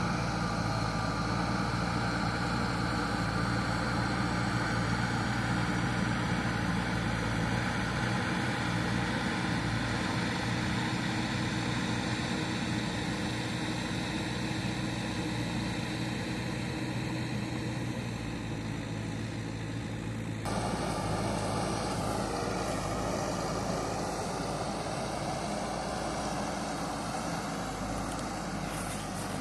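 JCB backhoe loader's diesel engine running steadily. The sound changes abruptly about two-thirds of the way through, then carries on much the same.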